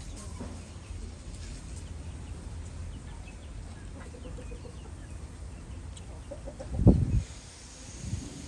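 Faint bird calls over a steady low rumble, and a loud thump about seven seconds in.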